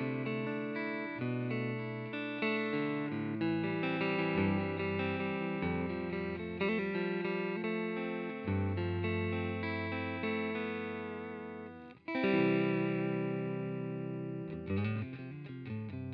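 Electric guitar, a Fender Stratocaster played through a UAFX Dream 65 Reverb amp pedal (an emulation of a '65 Fender Deluxe Reverb amp), playing chords and single notes that ring and change every second or two. The sound drops out briefly about twelve seconds in before a new chord is struck, then quicker picked notes follow near the end.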